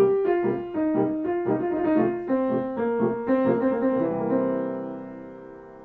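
Piano music: a short melody of quick notes that settles about four seconds in onto a held chord, which slowly fades away.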